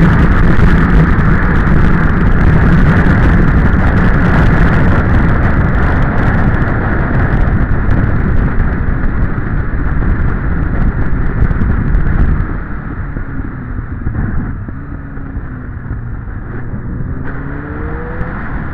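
Motorcycle at road speed heard from the bike: heavy wind rush over the microphone with the engine running underneath. About two-thirds of the way through the rush drops as the bike slows, and near the end a faint rising engine note is heard as it picks up speed again.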